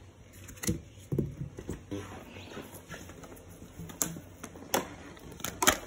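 Scattered sharp clicks and knocks of handling as the vacuum cleaner is moved about, with its motor not running; the loudest knocks come near the end.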